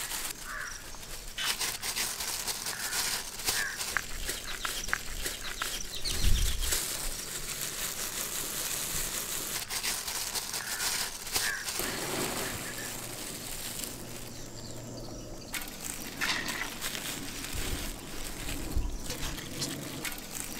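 Crackling rustle of plastic-gloved hands pressing a potato patty into dry breadcrumbs to coat it, with a soft thump about six seconds in.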